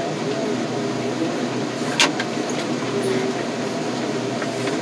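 Heavy car-crushing machinery running steadily: an engine drone with a wavering whine on top, and one sharp knock about two seconds in.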